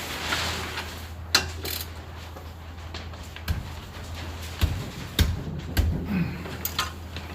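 Scattered sharp metallic clicks and knocks of hand tools, about seven in all, as parts of a truck's rear axle assembly are fitted and snugged up, over a steady low hum.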